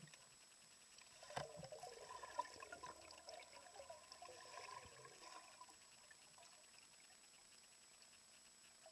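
Faint trickling and bubbling of aquarium water, with a light knock about a second and a half in and a few smaller clicks over the next few seconds.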